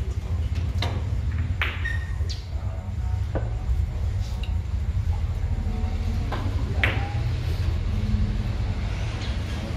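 Carom billiard balls clicking: cue tips striking balls and balls knocking into each other, a scattering of sharp clicks with the loudest about seven seconds in, over a steady low hum.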